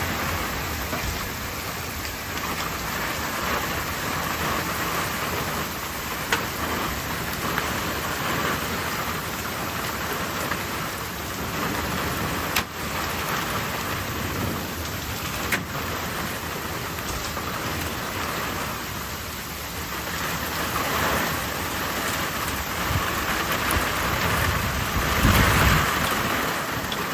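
Heavy thunderstorm rain pouring steadily, with a few sharp single knocks, and a louder surge with a low rumble near the end.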